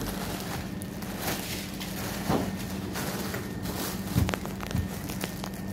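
Paper shopping bag and plastic packaging rustling as groceries are packed, with a few light knocks and clicks, over a steady low hum.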